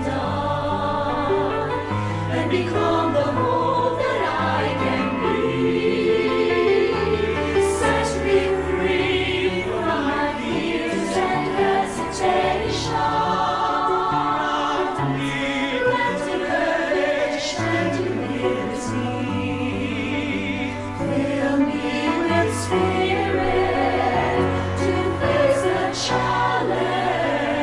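Choir singing a Christian prayer song with instrumental accompaniment and sustained bass notes.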